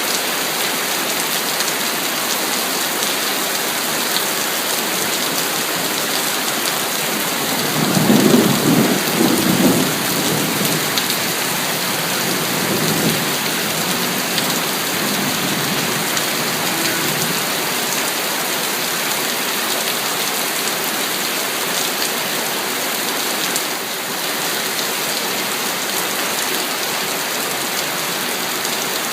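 Heavy rain falling steadily. About eight seconds in, a roll of thunder rumbles for a couple of seconds and then fades away.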